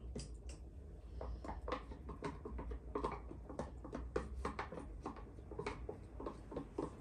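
Pot of simmering sauce with irregular light clicks and pops, several a second, as oil is poured in and a wooden spoon works in the pot.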